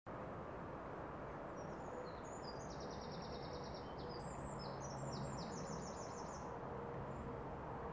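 A small songbird singing one high, fast song of quick notes with two rapid trills, stopping near the end, over a steady low background rumble.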